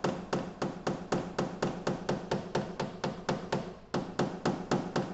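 Rapid, light hammer taps, about four a second, tapping down a high spot on a car hood's sheet metal during paintless hail-dent repair, with a brief pause about four seconds in.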